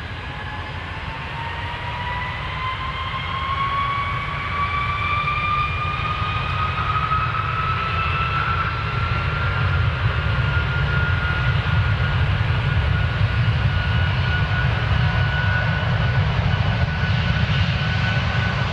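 Boeing 747's jet engines spooling up to takeoff thrust, heard from inside the cabin: a whine that rises for about ten seconds and then holds steady, over a low rumble that grows louder as the plane rolls for takeoff.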